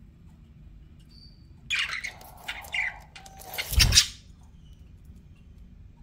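Budgerigars giving a short burst of harsh chirps and squawks about two seconds in, after a faint single chirp. The burst ends in a loud low thump just before four seconds, the loudest sound here.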